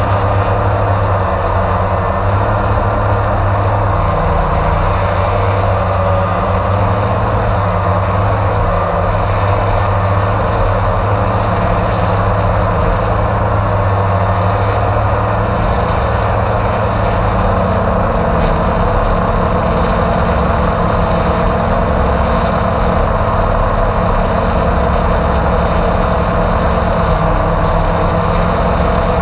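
Multirotor camera drone's motors and propellers running steadily in flight, heard close up from the camera on the drone itself, with small shifts in pitch now and then.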